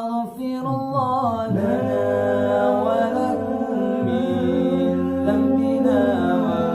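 Nasyid vocal group singing a cappella in harmony, holding long notes with slow changes of pitch and no clear words.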